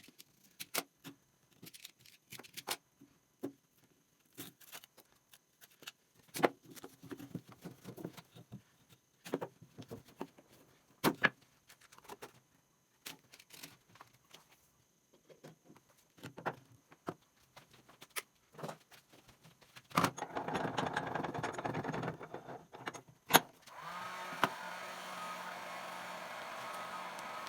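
Scattered clicks and knocks of tools and pieces being handled. Near the end a small electric motor, such as a power tool, runs in a short noisy burst, then settles into a steady hum.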